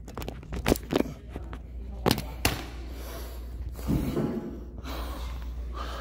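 Handheld camera being picked up and moved, its microphone catching several sharp knocks and bumps in the first two and a half seconds, then a man breathing hard.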